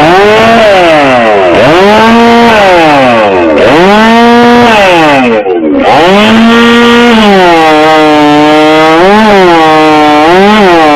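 Two-stroke gas chainsaw revved hard up and down three times, then held at full throttle while cutting through a log, the engine pitch sagging a little under load with a couple of brief surges near the end.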